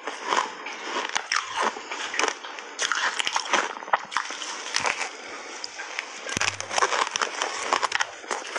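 Close-miked biting and chewing of a frozen slab of sticky ice coated in matcha milk powder: a dense, irregular run of crisp crunches as the ice breaks between the teeth.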